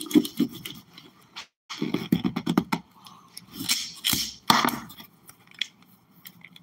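A large kitchen knife sawing and jabbing at a hard plastic water bottle that resists the blade. The sound is bursts of quick scraping clicks and knocks, with short pauses between the bursts.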